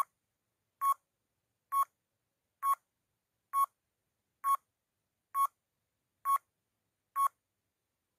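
Quiz countdown timer beeping: nine short beeps, a little under a second apart, one for each number as the timer counts down from nine to one.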